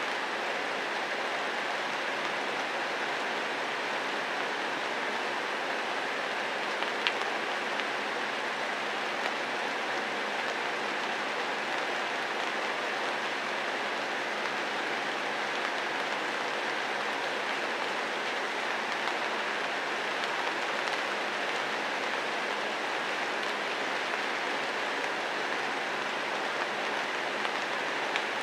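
Steady rain falling, an even hiss of many drops, with one brief click about seven seconds in.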